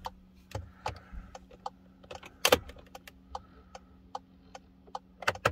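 Light, regular ticking of a Skoda Superb's hazard-warning flasher, roughly two to three clicks a second, with keys jangling at the ignition and one sharper, louder click about halfway through.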